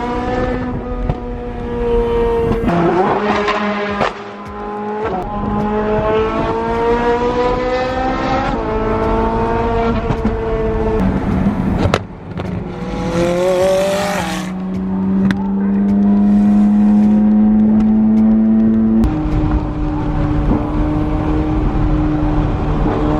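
High-performance car engine accelerating hard through several gears: the pitch climbs and drops back at each upshift about five times. It then settles into a steady drone for the last several seconds.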